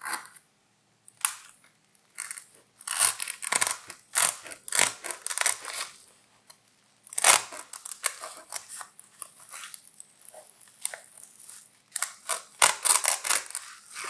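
Scissors snipping repeatedly at sewn-in fabric labels, in short irregular cuts with pauses between them.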